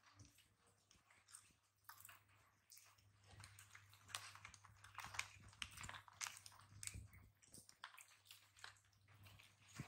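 Faint, scattered crunching and clicking of a baby monkey eating popcorn from a plate, with a faint steady low hum behind it.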